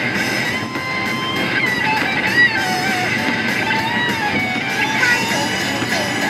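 Background music with guitar playing throughout.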